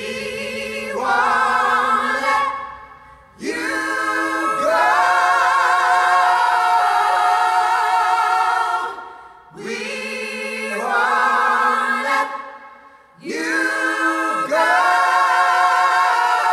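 Several voices singing together a cappella in harmony, with vibrato, in four phrases separated by short breaks.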